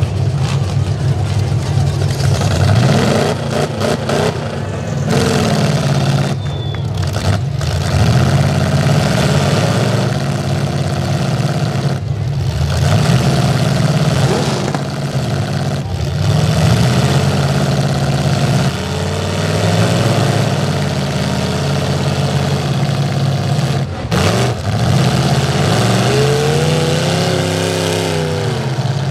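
Engines of demolition derby pickup trucks revving hard again and again, several at once, the pitch climbing and falling with each push. A big rise and fall in revs comes near the end.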